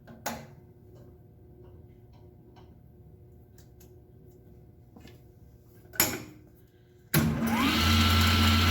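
A couple of sharp knocks, the louder one about six seconds in. Then a table saw motor switches on: it starts suddenly, its whine rises over about half a second and settles into a loud, steady run.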